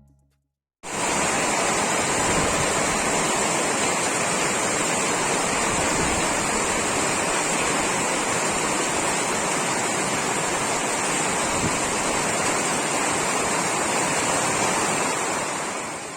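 Heavy rain pouring steadily, an even rushing noise that cuts in about a second in and fades out near the end.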